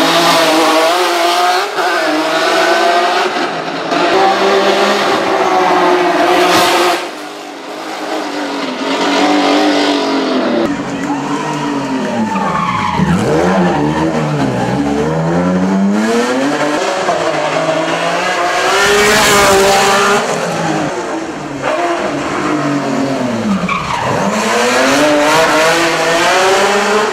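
Hill-climb race car engines at full throttle, their pitch climbing hard through each gear and dropping sharply on the shifts and lifts, several times over.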